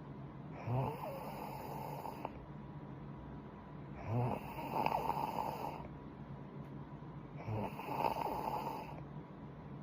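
A woman snoring in her sleep: three snores, one roughly every three and a half seconds.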